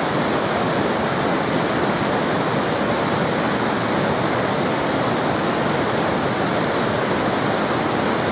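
Waterfall, its water rushing in a steady, unbroken stream of noise.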